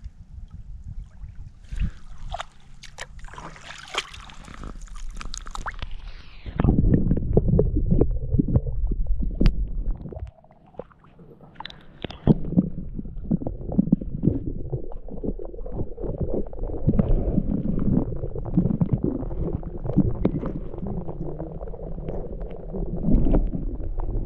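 Water splashing and sloshing against a partly submerged camera: splashy clicks at first, then from about six seconds in a louder, muffled underwater rumble with crackling as the camera goes under, briefly quieter about ten seconds in.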